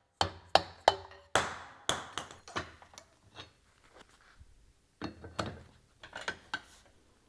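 Hammer blows on a punch driving the main bearing out of a DESMI ROTAN gear pump. Sharp metallic knocks that ring briefly come about every half second over the first three seconds, then a pause, then a few more from about five seconds in.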